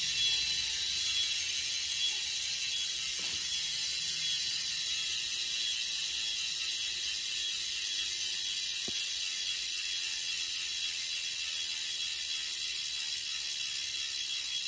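Cinema BMX cassette hub with a 9-tooth driver, four pawls and a single round spring, freecoasting as the rear wheel spins: the pawls click so fast that they run together into a steady, high-pitched buzz, getting slowly a little quieter.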